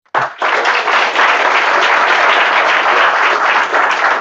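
Audience applauding: dense, steady clapping that starts abruptly right at the beginning.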